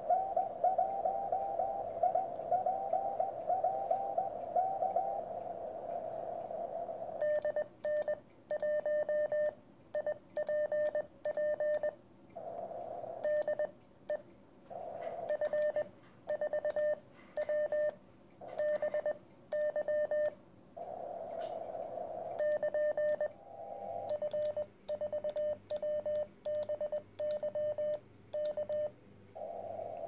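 Morse code from a Weber Soda Pop 40 m CW transceiver through a small speaker: for the first few seconds a received station's dits and dahs over band hiss, then the operator answering on a brass straight key, on-off beeps at one pitch with clicks of the key, and band hiss in the gaps.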